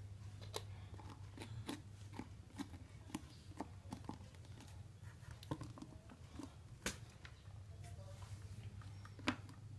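Scattered light plastic clicks and taps as a lid is pressed onto a capsule blender's plastic bowl and the motor unit is set on top, over a steady low hum.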